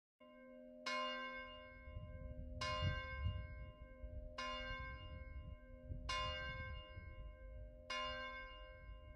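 A bell tolling, struck five times at a slow, even pace about every 1.7 seconds, each stroke ringing on into the next, with a low rumble underneath.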